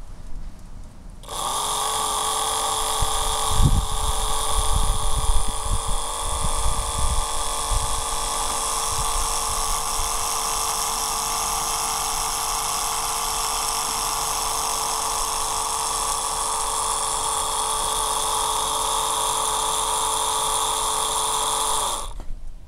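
Vintage 1960s K&O No. 14 toy-boat inboard electric motor (3 to 7.5 volts), freshly lubricated, running on battery power. It gives a steady high whine that starts about a second in and cuts off suddenly near the end. A few low thumps and knocks sound under the whine during its first several seconds.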